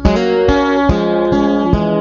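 Amplified acoustic guitar strummed in a steady rhythm, a chord struck about every 0.4 seconds.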